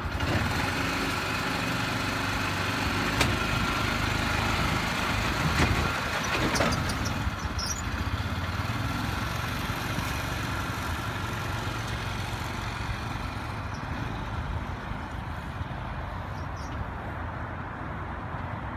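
Polaris Ranger 500 fuel-injected utility vehicle's engine running steadily under load as it tows a wheeled mobile home, with a couple of brief knocks in the first third. It grows gradually fainter over the second half.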